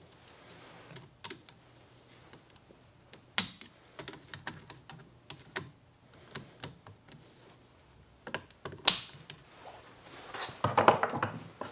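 Irregular small metal clicks and snaps of a steel circlip being spread with circlip pliers and worked onto the splined end of a CV axle. Two sharper snaps stand out, about three and a half seconds in and near nine seconds.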